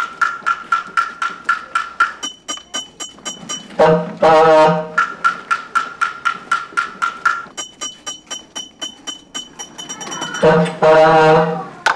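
A street-food vendor's wooden block (kentongan) tapped with a stick at about four strikes a second, in stretches alternating with high metallic clinks. A brassy horn-like blast of about a second breaks in twice, about four seconds in and near the end. The strikes keep an even beat, the kind of sound vendors' carts use to announce themselves.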